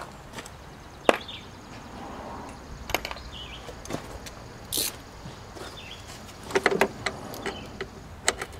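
Scattered metallic clicks and clinks of hand tools being handled, a small socket being picked out of a socket set, with a brief cluster of clinks near the end.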